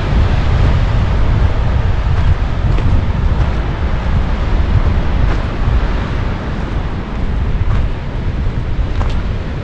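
Wind buffeting the microphone: a loud, steady low rumble, with a few faint clicks.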